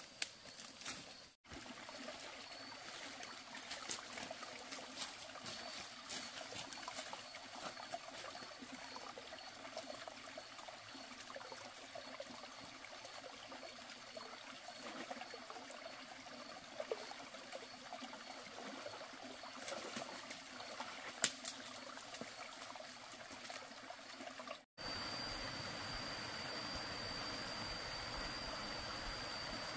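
Water trickling, with a faint steady high whine and scattered small clicks. The background changes abruptly twice.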